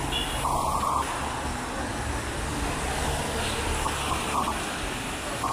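City street traffic on a rain-wet road: a steady hiss and hum of passing cars.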